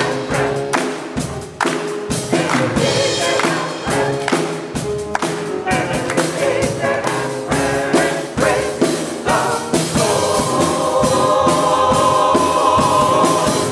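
Church choir singing a gospel-style anthem over drums, the percussion keeping a steady beat. About ten seconds in, the voices swell into a long, loud held chord.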